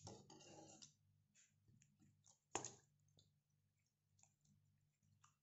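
Near silence with a few faint clicks and one sharper tap about two and a half seconds in, from utensils against a mixing bowl as powdered sugar is tipped into the batter.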